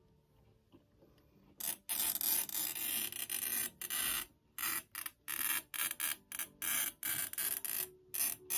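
Circle glass cutter's wheel scoring a circle into a sheet of glass: a gritty, hissing rasp that starts about two seconds in, first as one long stroke, then as many short strokes.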